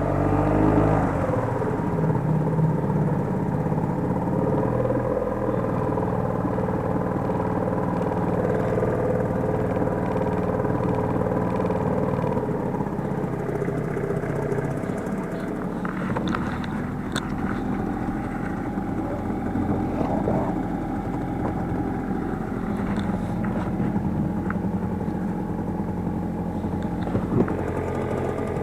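Boat motor running steadily, its pitch falling and settling in the first second or so, with a few light clicks and knocks in the second half.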